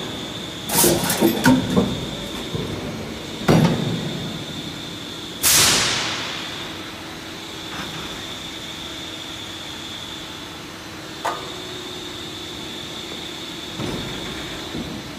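Stamping press working a frying-pot deep drawing die: clattering near the start, a heavy clunk about three and a half seconds in as the die closes, then a loud hiss that fades over about a second. A steady machine hum with a high whine runs underneath.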